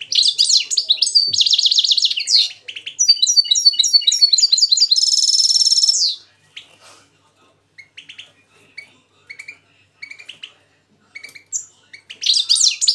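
Caged finches, a hybrid finch (mixto) and a goldfinch, singing against each other: rapid, high twittering song phrases, ending in a buzzy trill about six seconds in. Only scattered chirps follow, until the song starts again near the end.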